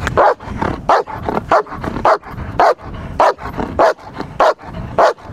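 German Shepherd protection dog barking in a steady, rapid rhythm, a little under two barks a second, as it guards in protection training.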